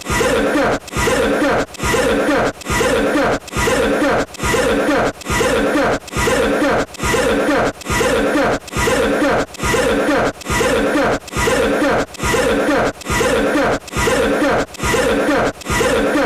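The same short cough repeated over and over as a loop, identical each time, about five coughs every four seconds with a brief gap between them.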